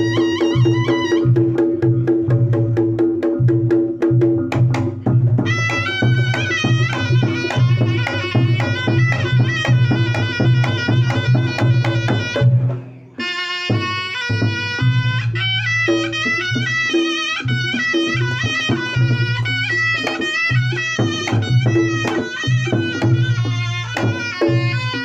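Reog Ponorogo ensemble music: a slompret, the Javanese shawm, plays a wavering, ornamented melody over drums, gongs and a steady low drone. The music dips and breaks off briefly about halfway, then resumes.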